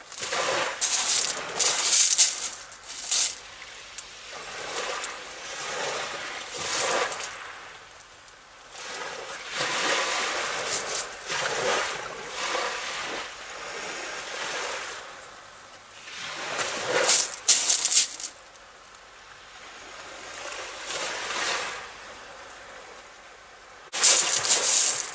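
Small waves washing onto the shore in repeated swells that rise and fade every few seconds, with close rustling now and then, loudest about a second in, around seventeen seconds and near the end.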